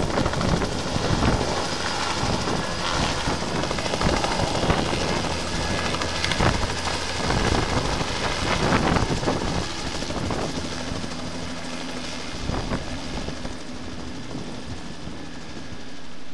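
Light helicopter lifting off, its engine and rotor running steadily under rough gusts of noise, then growing quieter in the second half as it climbs away.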